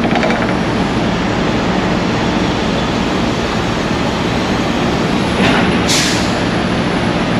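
Heavy truck diesel engine running steadily, with a short hiss about six seconds in.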